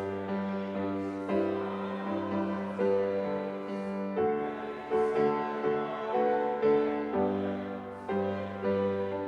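Piano playing slow, sustained chords, a new chord struck about every second.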